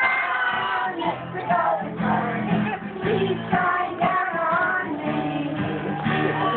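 Young children and a woman singing a song together, with guitar accompaniment.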